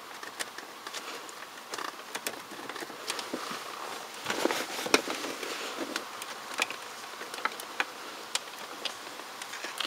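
Scattered small clicks and scrapes of a knife blade prying at the plastic release clips of a Mercedes W210 climate control module, over a faint steady hiss.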